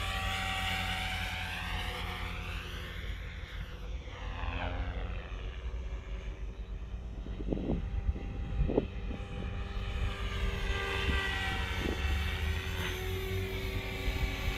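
Beam E5 electric RC helicopter in flight, its motor and rotor whine sweeping up and down in pitch as it passes back and forth. A low rumble runs underneath, and a few short knocks come around the middle.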